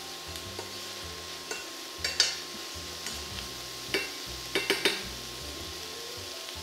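Diced onion, garlic and ginger sizzling softly in olive oil in a stainless steel pan while a metal spoon stirs them, clinking and scraping against the pan a few times, most sharply about two seconds in and again around four to five seconds in.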